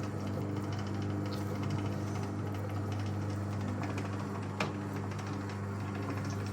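1958 Hotpoint Empress washing machine's electric motor driving its power wringer, a steady hum, with a light knock about four and a half seconds in.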